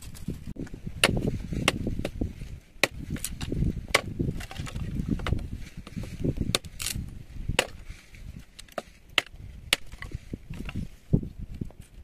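Irregular sharp chopping and knocking strikes, a few a second, over low scraping and rustling: hand-tool work on wood or stone.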